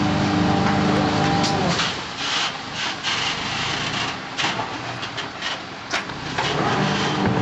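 Rotopress garbage truck engine running steadily, giving way after about two seconds to a stretch of rough rubbing and scraping with scattered sharp knocks, with the engine sound returning near the end.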